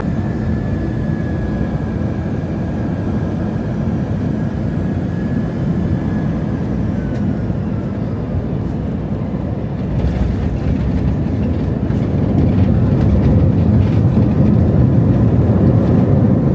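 Jet airliner cabin noise: a steady, loud rumble. Scattered rattles begin about ten seconds in, and the rumble grows louder shortly after.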